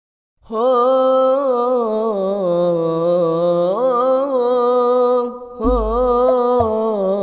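A new sholawat track starting after silence: about half a second in, a solo voice begins singing long, wavering held notes in a chant-like style, and after a brief dip a little past five seconds, deep bass beats come in underneath.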